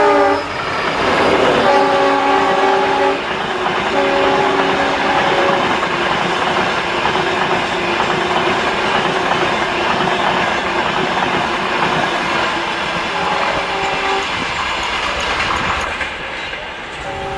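Indian Railways diesel-hauled train running past with a loud rumble and wheel clatter, its horn sounding in blasts about two seconds in, around four to five seconds in and again near thirteen seconds. The rumble eases near the end.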